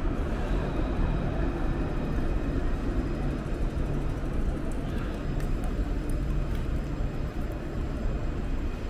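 Luas light-rail tram running past with a steady low rumble and a thin electric whine, over general city traffic noise.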